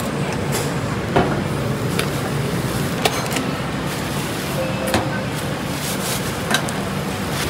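Steady din of a busy hawker centre, with a faint low hum and about six sharp clinks and knocks scattered through it.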